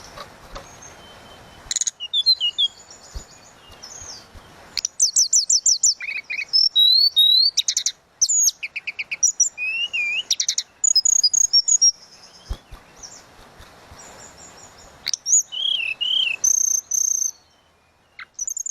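A tledekan laut songbird singing a fast, varied song of high whistled notes, quick trills and chirps, delivered in bursts with a lull about halfway through and a short pause near the end.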